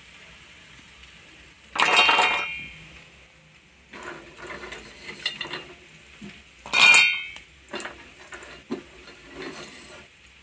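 Roasted cashews and almonds clattering into a stainless-steel mixer jar and against a steel plate, with two loud ringing metal clatters about five seconds apart and lighter clinks between.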